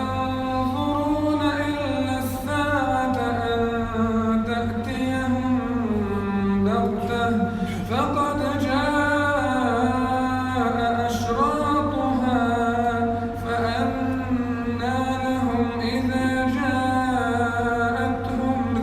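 A man's voice reciting the Quran in melodic tajweed style, drawing out long, ornamented notes that glide up and down with only brief breaths between phrases. A steady low hum runs underneath.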